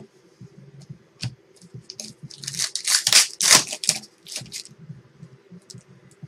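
A trading-card pack wrapper being torn open, with a loud burst of tearing and crinkling from about two to four seconds in. Small handling clicks and rustles of cards come before and after it.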